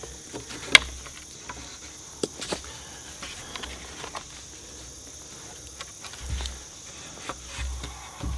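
Dead wooden branches knocking and clicking as they are handled and lashed together with cord, with one sharp click a little under a second in and several lighter knocks after. A steady high insect drone runs underneath.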